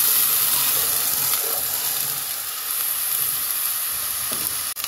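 Jaggery water poured into hot ghee and whole spices in a kadhai, sizzling and hissing loudly, the sizzle slowly dying down as the liquid settles.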